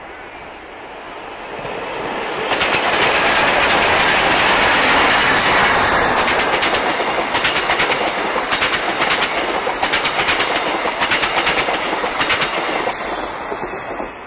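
A passenger train passes close by. Rolling noise swells as it arrives about two seconds in and holds steady, with repeated clusters of sharp clicks as the wheels cross rail joints, then dies away near the end.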